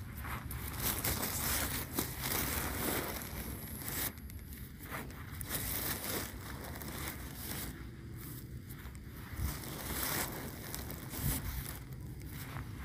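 Footsteps crunching and rustling through dry cut grass and straw, in an irregular crackle, over a steady low rumble of wind on the microphone.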